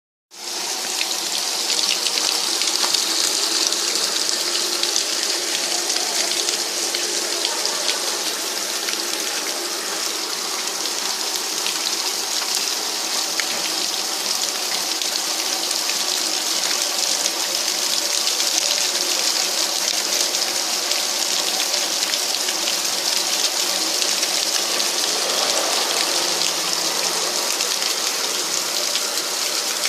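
Water falling and splashing steadily in a waterfall feature, pumped by a Wilo PDV-A400M submersible pump that has been repaired and is working.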